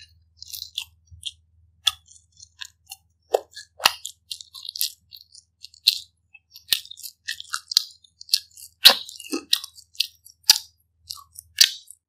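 Close-miked chewing of pizza: irregular wet mouth smacks and clicks mixed with crisp crunches of crust, several a second, the loudest about nine seconds in and near the end.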